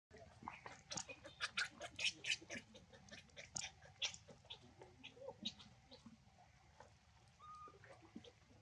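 Infant macaque squealing: a rapid run of short, shrill cries over the first few seconds, then fewer and more scattered calls.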